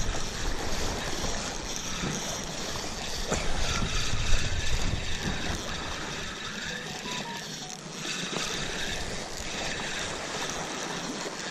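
Wind buffeting the camera microphone and small waves washing against shoreline rocks. The low wind rumble is strongest in the first half and eases about six seconds in.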